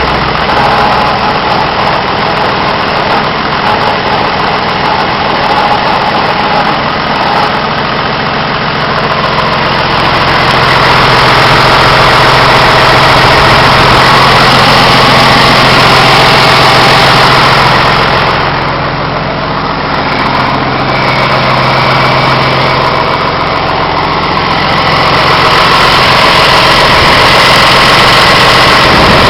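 John Deere 2955 tractor's six-cylinder diesel engine running close up, at about idle, its loudness swelling and easing a little a few times.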